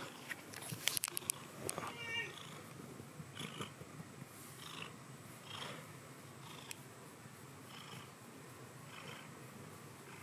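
Domestic cat purring while its head is stroked, the purr rising and falling with its breaths about once a second. A few clicks and rustles of handling come in the first two seconds.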